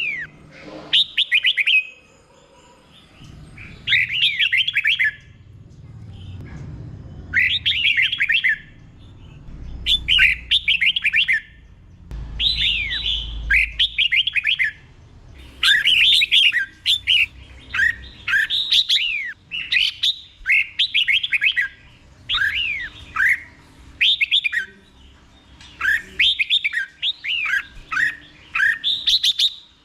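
Red-whiskered bulbul singing: phrase after phrase of quick, falling whistled notes, each phrase about a second long with short pauses between, in the repeated 'doubled' song style. A faint low rumble sits under the song in the first half.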